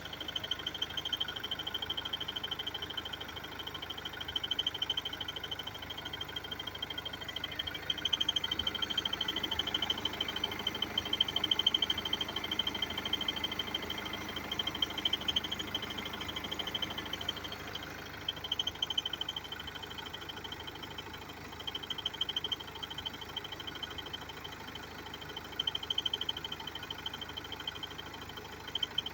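BMW F30 320d's four-cylinder diesel engine running with an abnormal noise: a steady high-pitched whine that pulses in strength over a busy ticking clatter.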